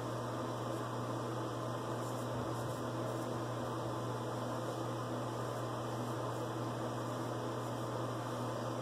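Steady low hum with an even hiss, like a running fan or mains hum, with a few faint scrapes of a straight razor cutting lathered stubble.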